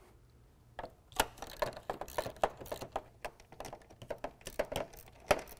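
Hand ratchet with a 10 mm socket clicking in quick, uneven strokes as it backs a nut off the plastic grille shutter assembly. The clicking starts about a second in.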